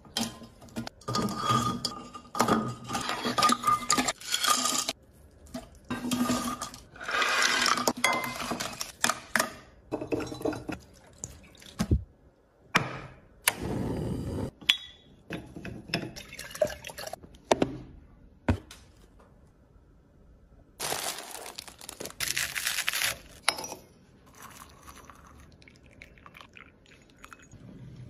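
Kitchen clatter as ingredients are tipped into a glazed clay cooking pot: clinks and knocks of pottery and dishes in short bursts with pauses between, and a few sharp clicks.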